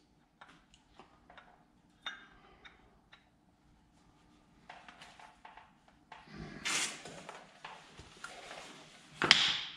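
Small clicks and knocks of metal parts being handled on a workbench, then a louder scraping rustle about six seconds in and a short, loudest scrape near the end.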